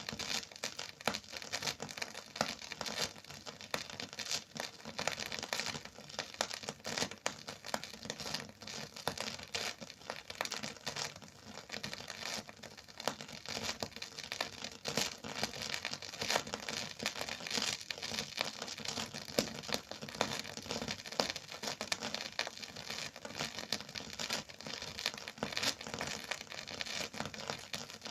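Phonograph record surface noise: a dense, continuous crackle of clicks and pops, with no music.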